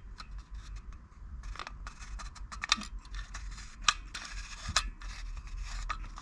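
Plastic parts of a Ben 10 basic Omnitrix toy being handled and fitted together: scattered light clicks and taps with some scraping as the top cover is lined up on the base.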